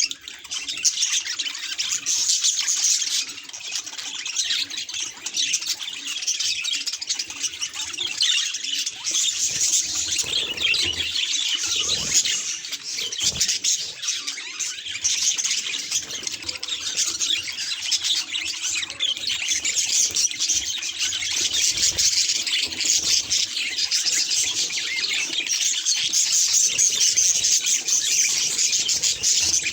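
Budgies chattering and chirping nonstop in a dense, rapid warble with squawky notes mixed in, with a few faint knocks around the middle.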